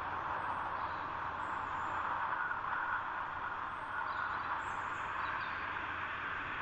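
Steady rushing wind, with faint, brief, high bird chirps every so often.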